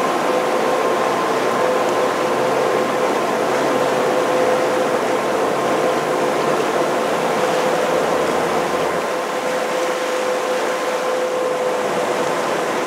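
Boat engine running steadily with water and air rushing past, heard from aboard a moving motorboat; a steady hum sits under the noise.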